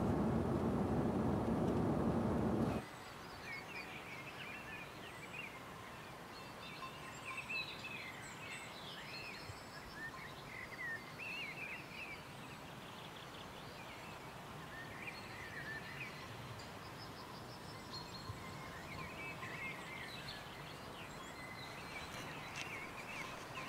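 Steady car road noise inside the cabin cuts off abruptly about three seconds in. Quiet countryside ambience follows, with birds chirping on and off and a few short crunching clicks near the end as a horse tears at grass.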